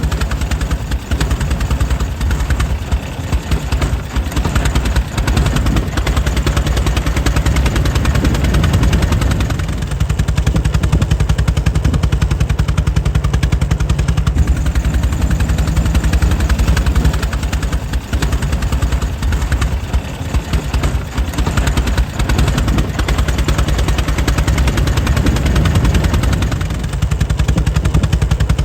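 Air-cooled engine of a 1904 Mitchell car running with a rapid, even beat of exhaust pops, dipping briefly in strength a few times.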